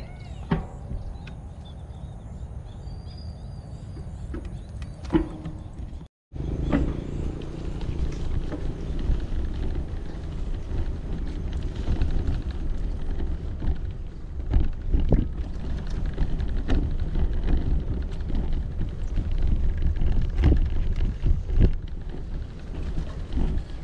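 Bicycle riding over a rough dirt path: low rumble of wind on the action camera's microphone and tyre noise, with scattered knocks and rattles from the bumps. It is quieter for the first six seconds, breaks off briefly at a cut, then carries on louder.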